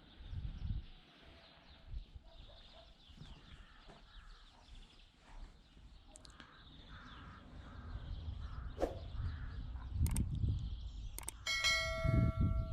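Low, uneven knocking and rumbling with a few sharp clicks, then, near the end, a metallic clang that rings on for about a second.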